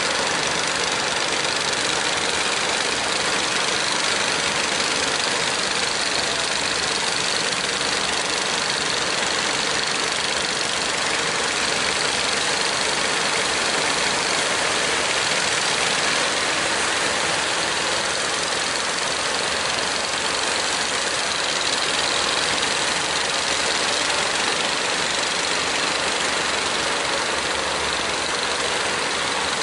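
Diesel engines of several wooden fishing boats running steadily as they motor through the estuary mouth, mixed with a steady rush of breaking surf.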